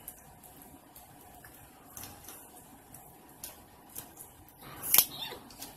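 Eating sounds at the table: scattered small clicks and crackles of king crab leg shells being picked apart by hand and with a fork, with one sharp click about five seconds in.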